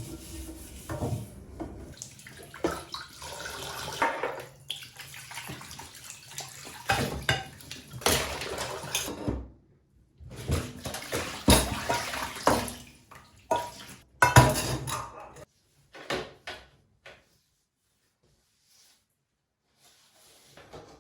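Dishes and cutlery clinking and knocking with water running, as at a kitchen sink. The sound breaks off briefly about halfway through and stops a few seconds before the end.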